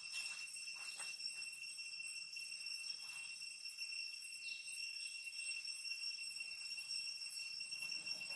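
Steady high-pitched insect drone, with a few faint soft clicks and rustles.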